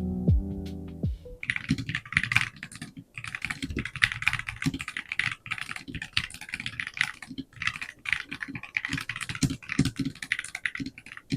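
Fast, uneven typing on a GB61 mechanical keyboard with an aluminium case and magnetic switches: a dense run of key clacks. A short stretch of music with falling notes plays at the start and stops about a second in.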